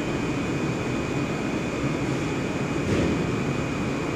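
HDPE blown-film extrusion line running: a steady mechanical drone with a thin, steady high whine over it. A short knock comes about three seconds in.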